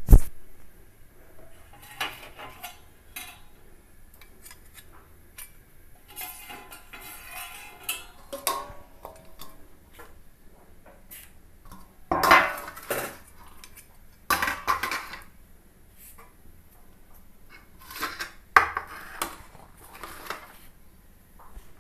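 Metal kitchen utensils and pots clinking and clattering in scattered bursts, the loudest a little past the middle.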